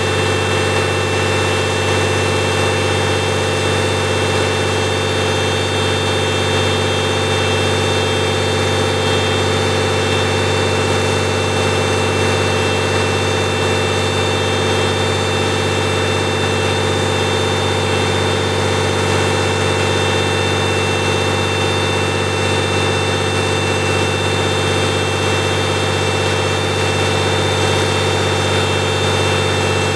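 Backhoe engine running steadily at a constant speed, with a steady hum and no change in pitch or load.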